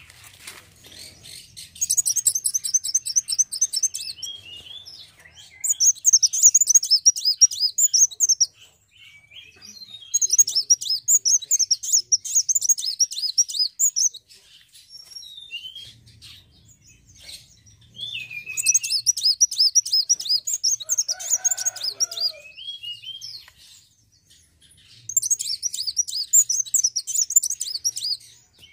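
Sunbird (kolibri wulung) singing in five bursts of rapid, high twittering trills, each two to four seconds long, with short single chirps between them.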